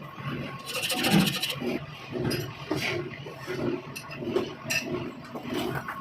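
Rhythmic rasping strokes, about two a second, with a short buzzing rattle about a second in.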